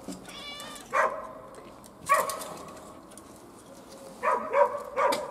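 Small Kokoni dog barking: five sharp, high-pitched barks, two spaced out and then three in quick succession near the end.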